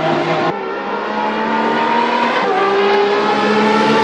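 Race car engine sound effect accelerating hard: its pitch climbs steadily and drops back at gear changes about half a second in and again about two and a half seconds in.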